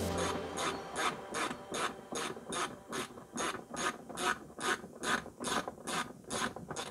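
Hand ratchet wrench worked back and forth in steady strokes, giving a rhythmic run of clicks about three a second, as a fender bolt on a 1999 Chevrolet Lumina is backed out.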